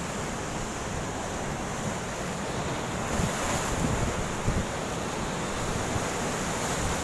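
Sea waves washing onto the shore in a strong wind, with gusts buffeting the microphone.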